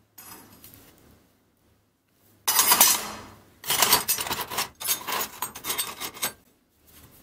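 Scrap steel offcuts and saw-blade pieces clinking and scraping against each other and the metal tray as a gloved hand rummages through them. The clatter starts about two and a half seconds in and comes in two spells, the second one longer.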